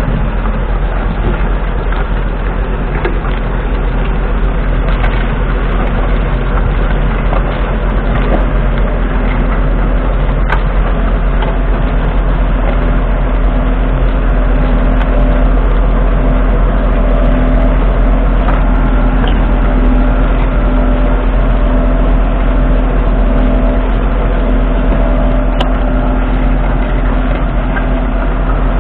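McCormick X7.680 tractor's 6.7-litre six-cylinder diesel engine running steadily under load while pulling a five-furrow reversible plough through the soil.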